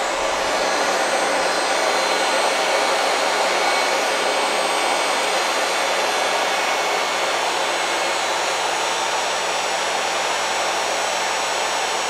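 Royal 884 metal upright vacuum cleaner running steadily at full speed, a loud even rushing sound from its motor and fan. The low hum underneath shifts slightly about six seconds in.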